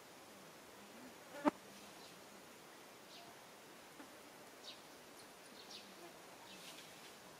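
Faint outdoor ambience: one sharp click about one and a half seconds in, then a string of brief, high, falling chirps about a second apart.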